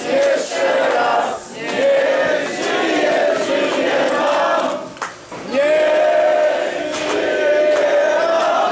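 A crowd of people singing together, long held notes in phrases with short breaks about one and a half and five seconds in.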